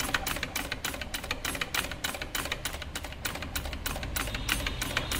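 Rapid, even mechanical ticking, about six ticks a second, over a low steady hum.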